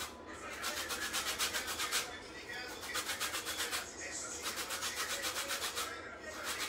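Lemon peel grated on a large metal box grater: quick, even rasping strokes, about seven a second, in three runs with short pauses about two and four seconds in.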